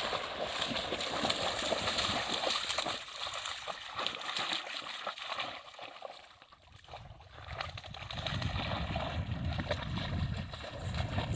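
A dog bounding and splashing through shallow lake water, with a low rumble in the last few seconds.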